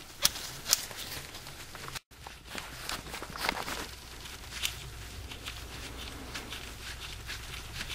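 Faint scattered clicks, scrapes and rustles of hands working under the car as the starter's lower bolt is turned out by hand, with handling noise from the camera held against the arm. The sound cuts out completely for a moment about two seconds in.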